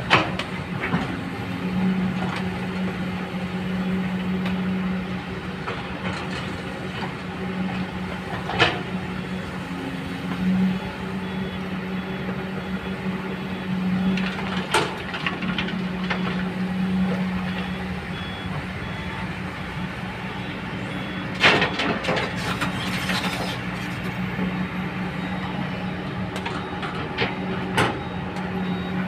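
Hydraulic excavator's diesel engine running steadily at working speed, its hum swelling and easing as the machine works, with sharp knocks now and then and a cluster of them about two-thirds of the way through.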